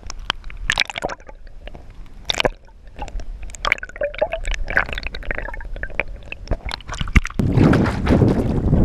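Water splashing, squelching and dripping close around a fishing kayak, with scattered sharp knocks. About seven and a half seconds in, a loud wind rumble on the microphone takes over.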